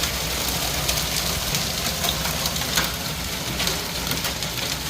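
Hail falling hard: a dense, steady roar with a low rumble underneath, and sharp clicks of individual hailstones striking all through it.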